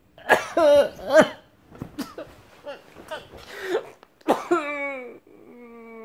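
A person's distressed nonverbal cries: sharp, cough-like sobs and groans in several outbursts, then one long held moan near the end.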